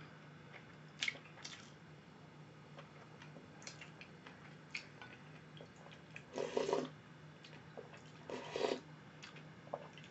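Close-up eating sounds: small wet mouth clicks of chewing, then two slurps of doenjang jjigae (soybean-paste stew) broth from a spoon, about six and eight seconds in. A faint steady hum runs underneath.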